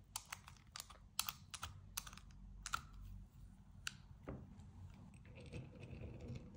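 About a dozen light, sharp clicks and taps on a porcelain dish, irregular and spread over the first four seconds, then a soft scraping rustle.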